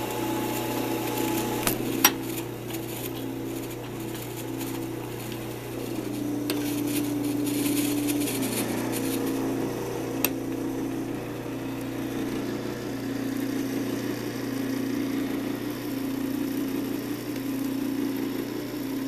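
Delta 46-700 wood lathe running with a steady motor hum as its speed is turned down to the minimum setting of about 500 RPM; the pitch shifts over the first few seconds. Sharp clicks about two seconds in and again about ten seconds in.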